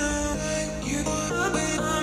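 Background music: a melody of pitched notes, some bending upward in pitch, over a steady bass line.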